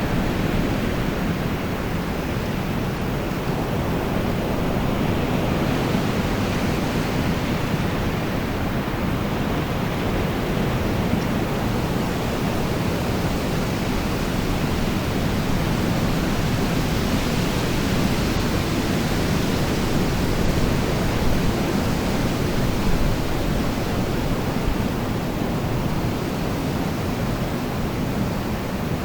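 Wind storm: a steady, dense roar of wind, heaviest in the low range, with slow gusts swelling and easing.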